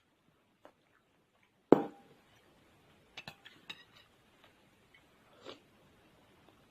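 A spoon clinking sharply against a soup bowl once, with a short ring, a little under two seconds in, followed by a few lighter clinks and knocks of tableware a second or so later and a soft scrape near the end.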